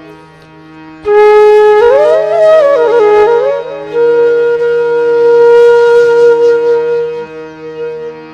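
Flute ringtone melody over a steady drone. The flute comes in about a second in with quick ornamented runs, then holds one long note that fades toward the end.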